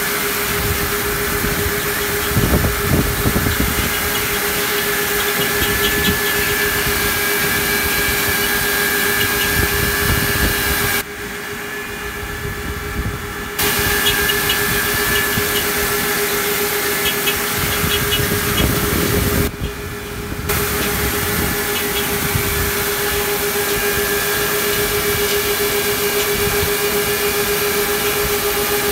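Tractor-drawn eight-row garlic machine running through the crop: a steady mechanical drone with a constant hum and a hiss over it, dropping quieter twice for a second or two.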